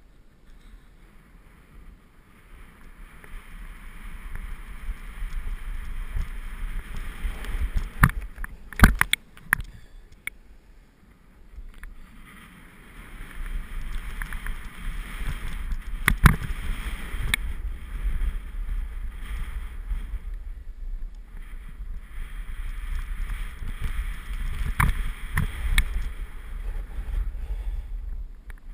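Edges scraping and hissing across hard-packed, tracked-up snow on a downhill run, swelling and fading turn by turn, with a low wind rumble on the microphone. Several sharp knocks come over bumps in the snow.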